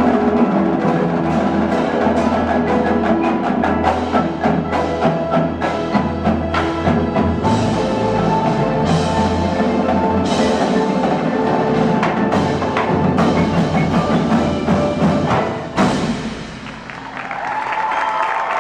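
Indoor percussion ensemble playing: marimbas and other mallet keyboards ring over sharp drum and wood-block strokes and a low sustained bass. The piece ends about sixteen seconds in, and applause and cheering rise near the end.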